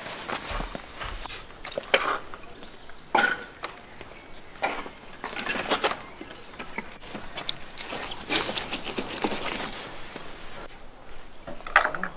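Irregular scrapes, knocks and rustles of a raw camel carcass being handled and cut on wooden butchering tables.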